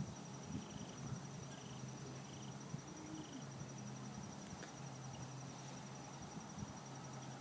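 Faint room tone: a steady low electrical hum with a thin high-pitched whine, and a few soft, faint taps.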